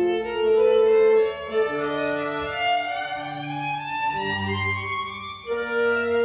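Solo violin playing a slow classical melody that climbs in pitch, accompanied by a small chamber ensemble with clarinet and double bass; the accompaniment moves to a new chord about five and a half seconds in.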